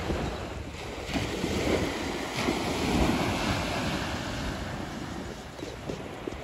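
Small waves breaking gently on a sandy shore: a steady wash of surf that swells about two seconds in and then eases. Wind rumbles on the microphone.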